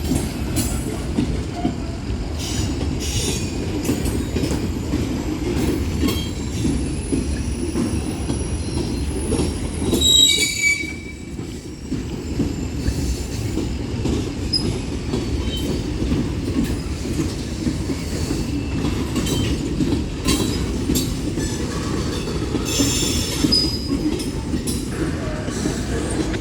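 Freight cars of a Union Pacific manifest train rolling past: a steady rumble of wheels on rail with frequent clicks, and brief high wheel squeals here and there. One squeal stands out about ten seconds in.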